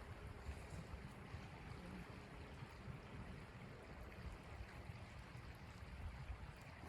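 Wind blowing steadily against a tent: a faint, even rushing noise with a low, irregular rumble.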